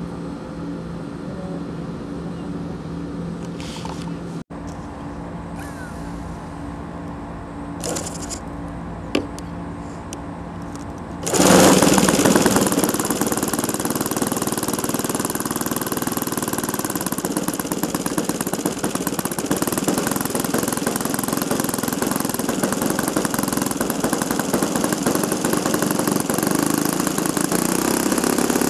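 ASP .91 model-airplane glow engine catching about eleven seconds in and then running steadily at close range, with a rapid rattling beat. Before it starts there is only a steady low hum and a few light clicks.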